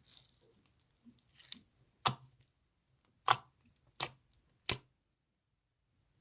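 Clear slime being squished and worked with soft sticky crackling, then four sharp pops in the second half.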